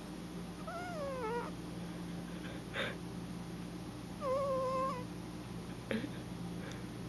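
A cat making two high, squeaky cries. The first wavers and falls in pitch and the second holds steady, with a short breathy puff between them and a brief click near the end.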